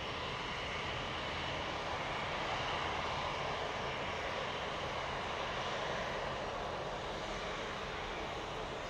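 Airliner engines running with a steady rushing noise that swells slightly a couple of seconds in, then eases gently.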